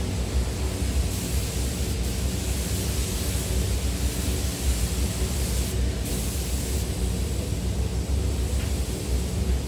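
Steady rush of air with a low hum from a paint booth's ventilation fans, unchanging throughout.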